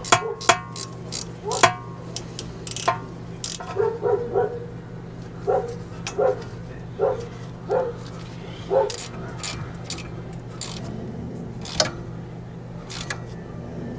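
A dog barking about seven times in a run of short barks, over sharp clicks and knocks and a steady low hum.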